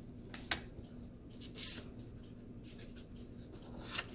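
Oracle cards being handled as the next card is turned over: a sharp tap about half a second in, a soft slide of card on card, then a few light clicks near the end.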